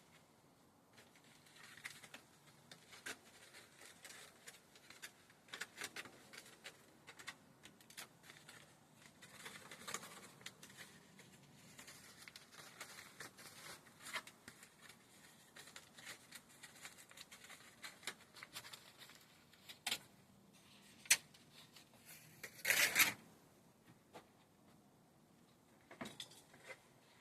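Faint, scattered clicks and rustles, with one louder rustling noise lasting about a second roughly three-quarters of the way through.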